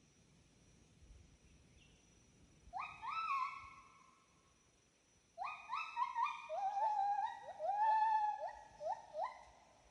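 Calls from several animals, overlapping. The calls are pitched whooping notes that each rise quickly and then hold. There is a short bout about three seconds in and a longer, denser one from about halfway to near the end.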